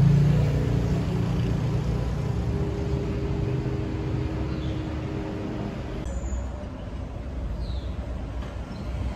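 Street traffic noise, led by a large vehicle's engine rumbling nearby and slowly fading away over about six seconds.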